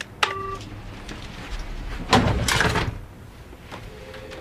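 A short electronic beep just after the start, then a wooden desk drawer sliding open with a scraping rumble about two seconds in.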